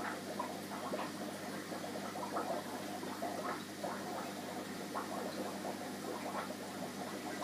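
Aquarium air stone bubbling, a constant stream of air gurgling up through the water and popping irregularly at the surface, over a steady low hum.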